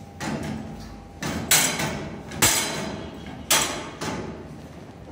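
Loud metal clanks from the steel gates and feed barrier of a cattle pen: a softer knock, then three hard knocks about a second apart, each ringing briefly.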